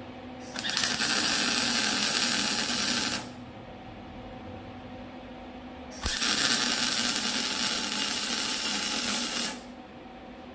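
MIG welding arc on the steel pipes of an exhaust X-pipe, crackling and hissing steadily in two runs: one starting about half a second in and lasting close to three seconds, another starting about six seconds in and lasting about three and a half seconds. A steady low shop hum fills the gaps between the runs.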